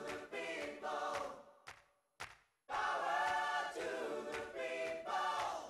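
Quiet background music with choir-like sustained voices. It drops out for about a second near the middle, then resumes.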